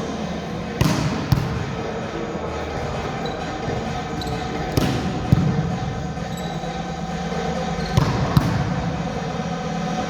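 A volleyball being struck and hitting the court: sharp smacks in three pairs, each pair about half a second apart, over steady background noise of a sports hall.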